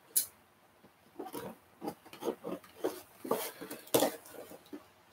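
Fingers picking and scratching at packing tape on a toy box: a string of short, irregular scratches and rubs as the tape is worked loose.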